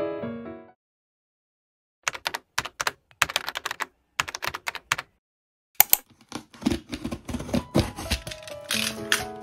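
Clusters of rapid clicking taps, then a sharp click and a box cutter scraping and slicing through the packing tape on a cardboard box, with dull thuds against the cardboard and a hissing scrape near the end.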